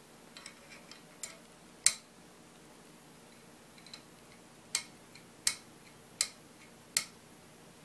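Sharp metal clicks from the steel action parts of a Marlin 336SS lever-action rifle being fitted and worked by hand in its receiver. A few faint ticks lead into two sharp clicks, then four more clicks follow evenly, about three-quarters of a second apart.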